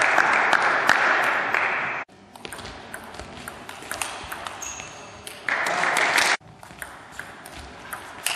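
Table tennis rally: the celluloid ball making sharp repeated clicks off the rackets and the table. A loud hissing rush of noise runs over the first two seconds and cuts off abruptly, and a shorter one comes around six seconds in.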